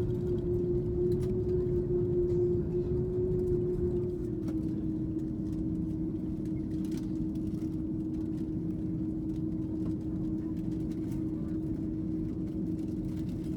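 Airbus A330-300 taxiing, heard from inside the cabin: a steady rumble of engine and rolling noise with a steady whine that drops slightly in pitch and level about four seconds in.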